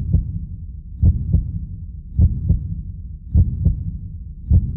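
Heartbeat sound effect: a slow, steady lub-dub, about one double thump a second, over a low rumble.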